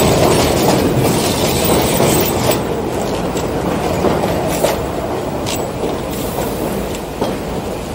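New York City subway train running on the elevated steel track, heard from the front of the lead car: a steady rumble with a few sharp clicks, gradually getting quieter.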